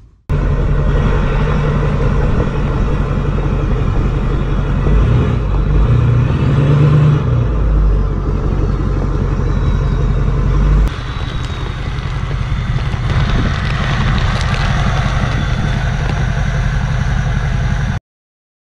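Pickup truck running, a loud steady low rumble that shifts about eleven seconds in and cuts off suddenly near the end.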